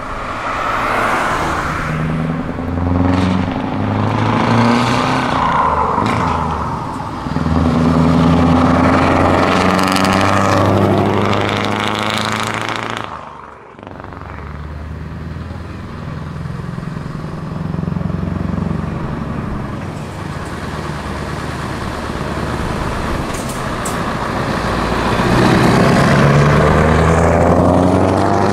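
Scania V8 trucks with open exhaust pipes pulling away and driving past, loud, the engine note rising and dropping several times. After a brief dip about halfway a second truck builds up and passes close near the end, its note sweeping up and then down.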